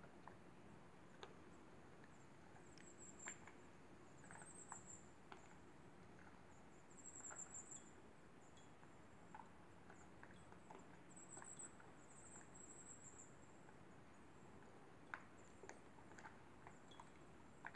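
Near silence: faint background hum with scattered soft clicks and a few brief, faint, very high-pitched trills.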